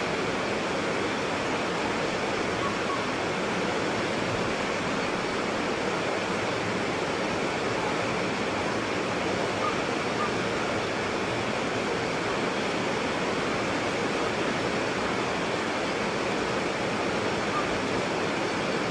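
White water rapids rushing in a steady, unbroken roar of water noise.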